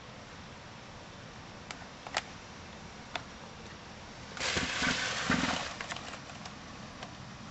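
Camera handling noise over a steady hiss: a few sharp clicks, then a louder rustling scrape with dull thuds in the middle as the camcorder is moved.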